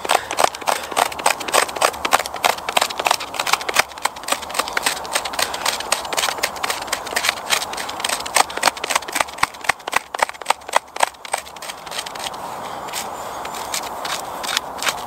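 Knife blade scraping silver birch bark, rapid repeated scratchy strokes, several a second, raising fine flakes and powder for fire-lighting tinder. The strokes thin out about twelve seconds in.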